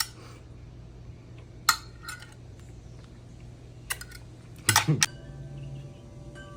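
Metal cutlery clinking against the dish while the steak is eaten: a few sharp, separate clinks at uneven intervals, with a louder cluster about five seconds in.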